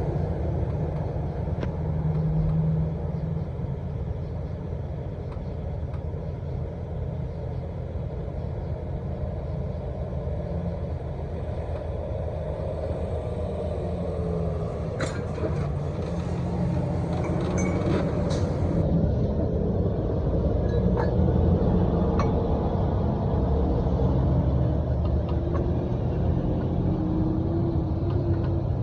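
Heavy diesel truck engine running steadily: a low rumble, with a few scattered light clicks.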